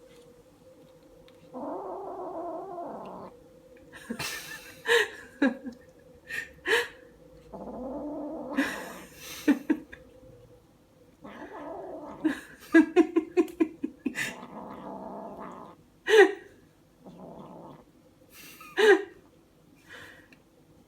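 Kitten growling in long, low rumbles, broken by short sharp hisses, with a quick run of several hisses about two-thirds of the way through: a defensive warning.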